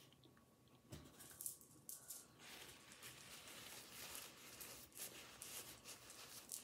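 Paper napkin faintly crinkling and rustling in the hands, with many small crackles, starting about a second in.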